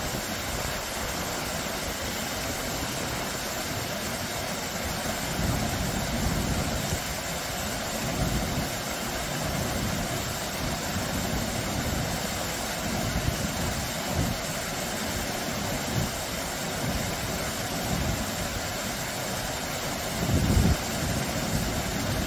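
Small low waterfall: stream water spilling steadily over rock ledges and splashing into a shallow pool, a continuous even rush. Uneven low rumbles come and go underneath, the strongest about twenty seconds in.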